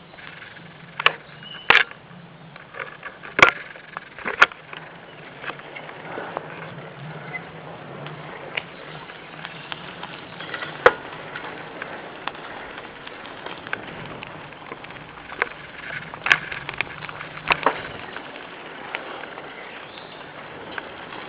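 Bicycle ridden along a bumpy forest dirt track: steady rolling noise, broken now and then by sharp knocks and rattles, loudest a few seconds in and again near the end.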